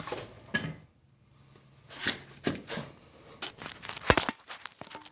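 Hand-tool work on wheel hub bolts: a click-type torque wrench and socket rattling and scraping, with scattered clicks and a sharp click about four seconds in.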